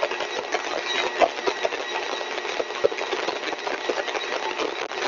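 Motor-driven axial compressor stage running steadily at full design speed: a steady whirring noise with a faint high whine and irregular crackly clicks.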